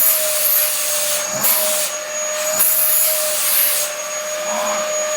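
Dyson vacuum cleaner running with a steady motor whine under the rush of air. The airflow hiss swells and falls back several times.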